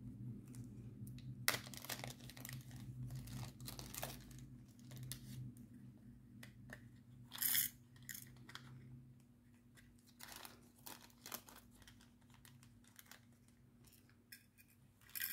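Small plastic bags of diamond-painting drills being handled and sorted, crinkling with scattered light clicks and rattles, one louder crinkle about halfway through, over a faint steady low hum.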